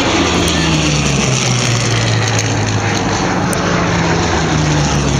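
Propeller-driven vintage aircraft engine running loud and steady as the aircraft passes, its drone slowly dropping in pitch.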